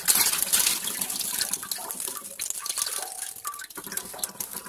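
Stream of cooling-system flush water pouring from a hose into a basin of water and splashing. This is the water flush of a van's engine cooling system draining out. It is loudest in the first second.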